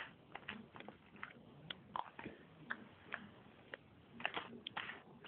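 Faint, irregular small clicks and taps, a dozen or so, with a quick cluster near the end, from fingers handling a folded-paper toy revolver, most likely working its reload.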